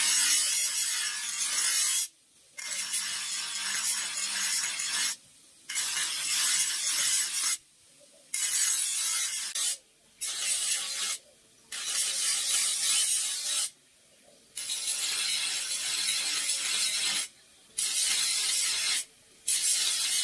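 Steel cleaver blade, forged from a Soviet torsion bar, ground on a bench grinder's abrasive wheel: about nine passes of hissing, scraping grind, each a couple of seconds long, with short pauses between them as the blade is lifted off the wheel.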